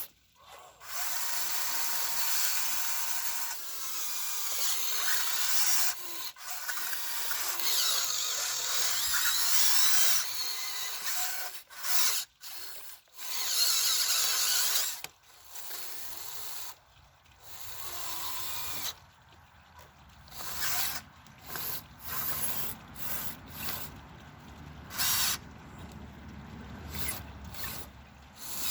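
Electric motors of a Huina 1599 RC excavator whirring in bursts as the machine works: several long runs of a few seconds each, then shorter stop-start bursts in the second half.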